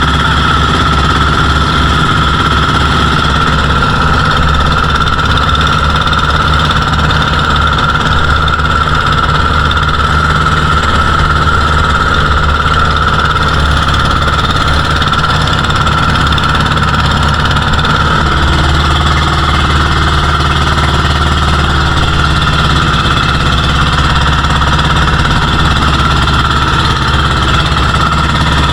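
Motorized bangka's engine running steadily at a constant speed, loud and unchanging.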